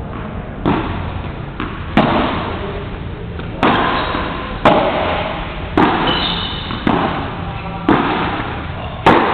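Padel ball hit back and forth in a rally: eight sharp hits about a second apart, each with an echoing tail.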